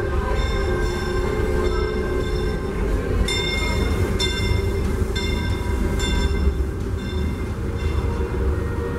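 Disneyland Railroad steam train rumbling across a truss bridge overhead. In the middle a high ringing sound comes back about once a second.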